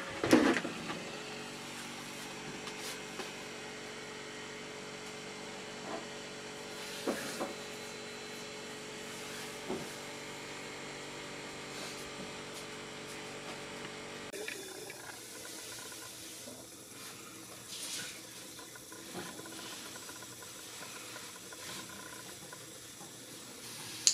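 Small USB desk fan running off a power bank: a steady motor hum with an airy hiss, and a few light handling knocks. The hum cuts off abruptly about two-thirds of the way through, leaving only a faint hiss.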